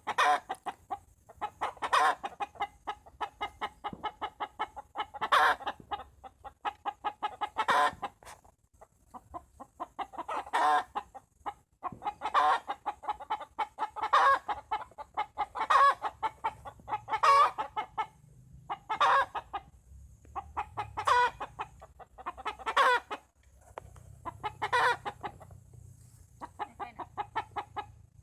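Black bone chickens clucking continuously in quick runs of short calls, with a louder call standing out every couple of seconds.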